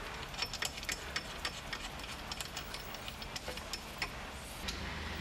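Lock nut being spun by hand onto a threaded bolt through the roller fairlead's mounting plate: light, irregular metallic clicks and ticks.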